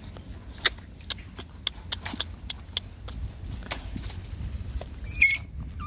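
Puppies scuffling on dry leaves and twigs while being rubbed by hand: irregular sharp crackles and clicks over a low rumble, with a short high-pitched squeal about five seconds in.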